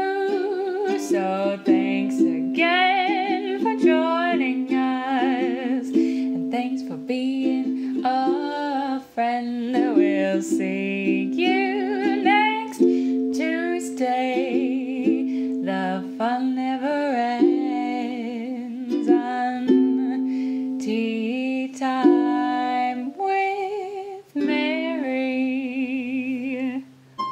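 A woman singing a melody with vibrato to her own ukulele accompaniment.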